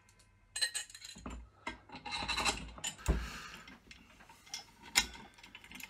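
Metal parts of a drill stand being handled and fitted together: scraping and rubbing as the lever and its long screw are put in place. There are light clicks, a knock about three seconds in and a sharp click near the end.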